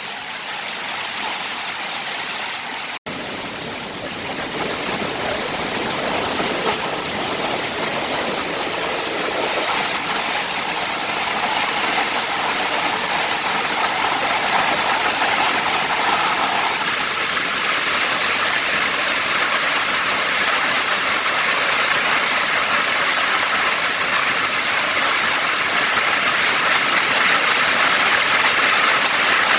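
Heavy rain pouring down, a dense steady hiss that grows louder in the second half, with a brief cut about three seconds in.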